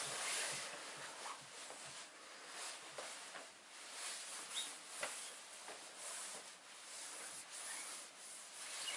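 Irregular rubbing and rustling noise that comes and goes in small scrapes and swishes.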